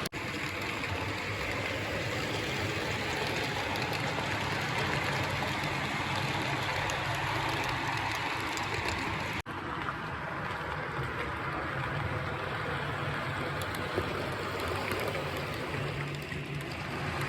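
HO scale brass model train, a Union Pacific P-77 4-6-2 steam locomotive with brass coaches, running on the track: a steady rolling rumble of wheels and the locomotive's motor and gearing. The sound breaks off for an instant about halfway, then carries on.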